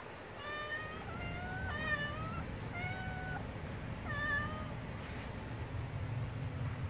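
Kittens meowing, about five short, high calls in the first four and a half seconds, some rising or falling in pitch, while they wait by their bowls to be fed.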